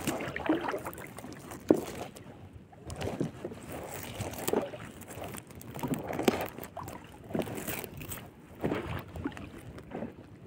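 Hands working a nylon gill net to free a dead rohu fish from the mesh: irregular rustling, tugging and handling noises, with one sharp knock nearly two seconds in.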